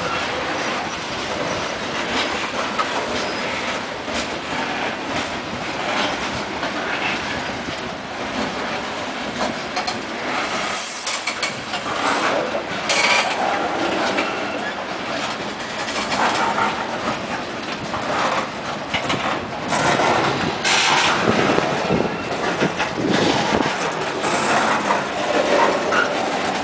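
Freight cars rolling past close by: a steady rumble of steel wheels on the rails with repeated clanks and clatter as the wheels cross the rail joints. The clatter gets busier and louder in the second half.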